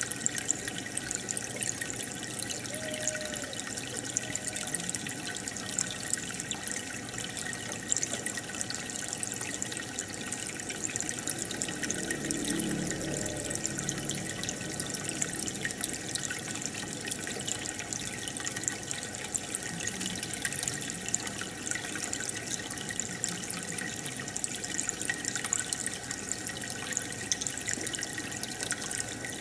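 Aquarium air stone bubbling: a steady stream of air bubbles rising and breaking at the water surface, with many small pops and trickles.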